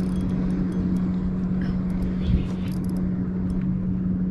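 A steady low motor hum, even in pitch throughout, with a few faint light ticks over it.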